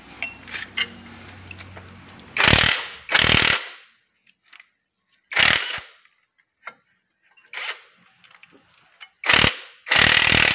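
A power tool, likely driving fasteners, runs in five short bursts of about half a second each: two back to back, one on its own, then two more close together.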